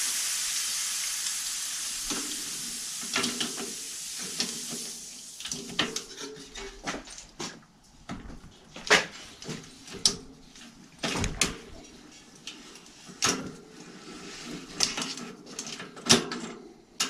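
A steady hiss that fades away over the first few seconds, then irregular metallic clinks and clanks of chain whips and a wrench on the sprockets of a Sachs-Maillard screw-on freewheel as they are worked loose.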